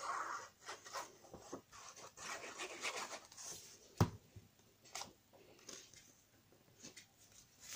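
Paper being handled and rubbed down while it is glued onto a card, a faint scraping rustle with a sharp tap about four seconds in and a softer one a second later.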